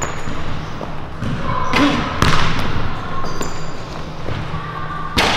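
A basketball bouncing on a hardwood gym floor: a couple of hard bounces about two seconds in and a louder one near the end, over a steady low hum. Short high squeaks come in between.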